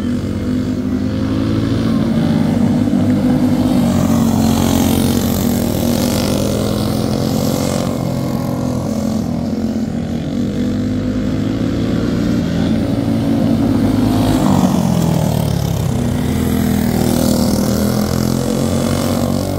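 Go-kart engines running hard around a dirt oval, the engine note rising and falling as the karts go through the turns and down the straights. About fifteen seconds in, the note drops and then climbs again as a kart lifts and gets back on the throttle.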